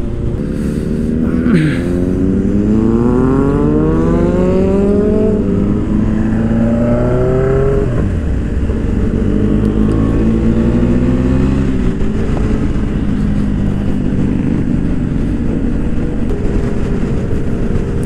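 KTM 390 Adventure's single-cylinder engine accelerating hard through the gears. Its pitch climbs and drops back at upshifts about five, eight and twelve seconds in, then holds steady at around 100 km/h.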